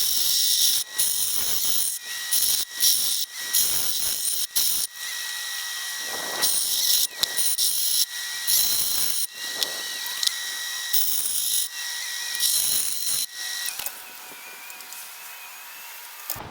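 Steel axe bit being rough-sharpened on a motor-driven, water-dripped grindstone: repeated bursts of gritty grinding with short breaks, over a thin steady whine. The grinding stops about two seconds before the end, leaving a quieter steady running noise.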